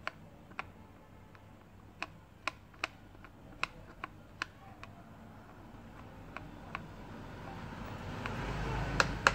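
Irregular light clicks and taps of small metal tools on a phone circuit board during soldering, about a dozen spread out. A rushing hiss swells over the last few seconds, and two louder clicks come near the end.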